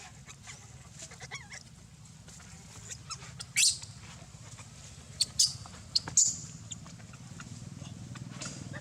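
A few short, high-pitched animal calls, with the loudest near the middle and a quick cluster a couple of seconds later, over a steady low hum.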